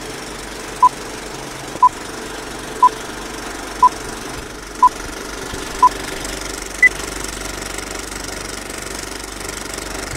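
Old-film countdown leader effect: a film projector running with a steady clatter, under six short beeps one second apart and then a single higher-pitched beep about a second later, after which the projector runs on alone.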